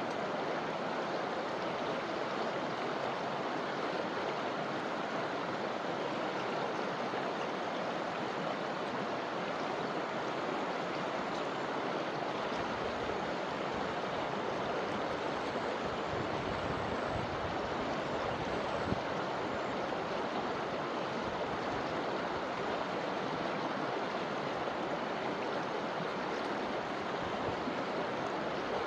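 River water flowing over rocks and branches in a steady, even rush. A low rumble swells for several seconds in the middle.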